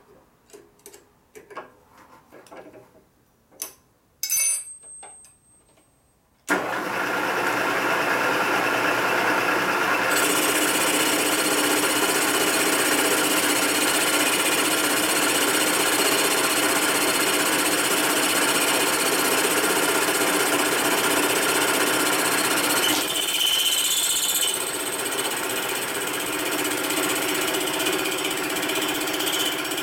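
A few light clicks and taps, then about six seconds in a milling machine starts suddenly and runs steadily, its end mill cutting the welded aluminium of a Harley-Davidson Panhead cylinder head. The cutting noise gets brighter about ten seconds in, and its tone shifts around twenty-three seconds.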